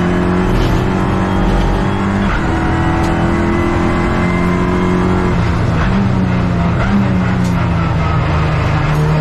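Clio Cup race car engine running at speed, its pitch holding steady and then shifting in steps.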